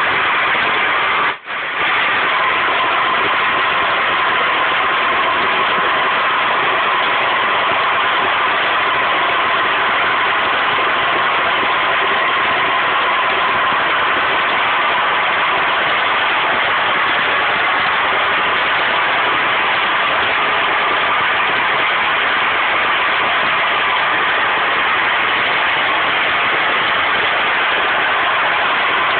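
Uncontrolled gas well blowout (open gas fountain): gas escaping under pressure with a loud, steady rushing roar. There is a brief dropout about a second and a half in.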